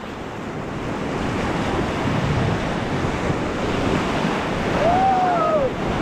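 Rushing whitewater of a river rapid, growing gradually louder as the raft drifts toward it, with wind on the microphone. A brief rising-and-falling voice call about five seconds in.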